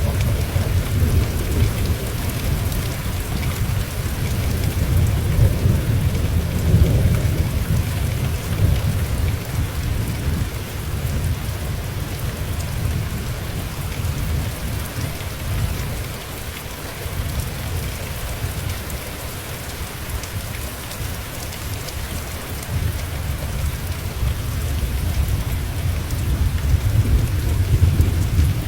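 Steady rain falling, with thunder rumbling low underneath: the rumble is heavy through the first third, dies down in the middle and rolls in again near the end.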